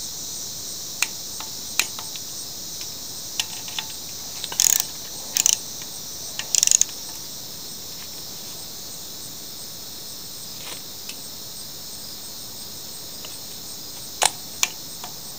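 Socket ratchet clicking in short bursts as the sump bolts of a Briggs & Stratton mower engine are run down, then two sharp clicks near the end from a torque wrench on the bolts. A steady high insect chorus, typical of crickets, runs underneath and is the main background sound.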